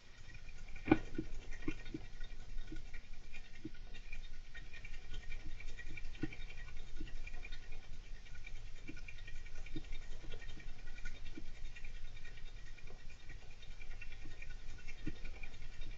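Golden hamster scratching and scrabbling steadily, flickering in loudness several times a second, with scattered light knocks, the sharpest about a second in.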